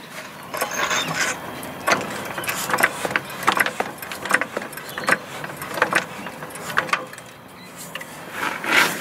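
Hydraulic trolley jack being pumped by its handle to lift a boat rudder under load: a run of irregular metallic clicks and clanks. It pauses briefly, then gives a louder clunk near the end.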